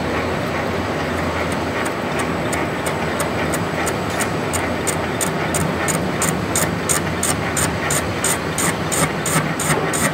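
WEISS WBL210D bench lathe running with a steady motor hum while its tool turns a large rusty workpiece. A regular high ticking, about three times a second, comes in about a second in and grows louder.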